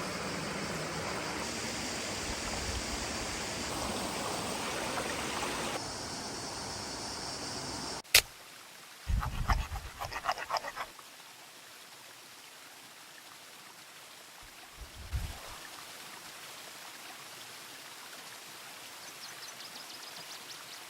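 A mountain river rushing steadily for about eight seconds, cut off abruptly. A fainter rush of water follows, with a short run of knocks and clatter about a second after the cut and a single thump near the middle.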